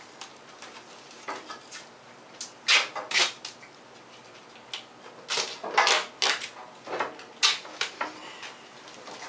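Aluminum foil and tape being handled and pressed onto a capacitor's outer shell: irregular crinkling and rustling, with the loudest bursts about three seconds in and again from five to eight seconds.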